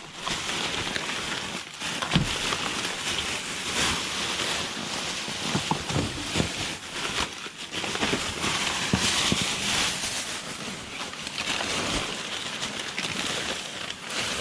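Plastic bags and packaged goods rustling, crinkling and knocking as a bag of discarded food is rummaged through, over a steady hiss.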